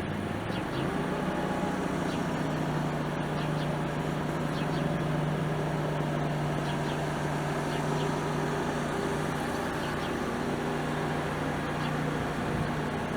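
A motor running with a steady low hum that steps up in pitch about half a second in and then holds.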